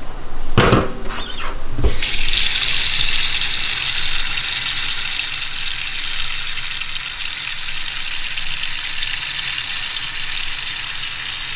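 Two short knocks, then a tap running steadily as water fills a stockpot of soup bones.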